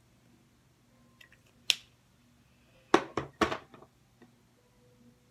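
Sharp plastic clicks and clacks of makeup products being handled off camera: a few faint ticks, a single snap about a second and a half in, then three quick sharp clacks around three seconds in, over a low steady room hum.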